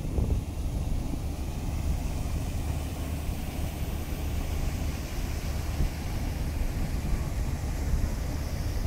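Steady outdoor ambience: a low rumble with a faint hiss over it and no distinct events.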